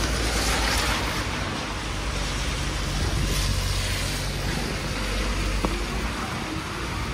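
Cars passing on a rain-soaked street, their tyres hissing on the wet asphalt, swelling twice (about a second in and again around three to four seconds in) over a steady low traffic rumble.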